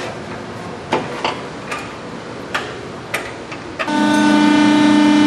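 Maren horizontal baler: a few light clicks and knocks, then about four seconds in a loud, steady, multi-toned drone starts abruptly and holds, as the baler goes into its automatic cycle.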